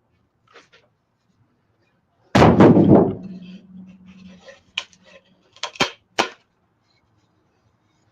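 One loud thump about two seconds in, then a few sharp knocks and clicks, the sound of hard objects being handled and set down on a workbench.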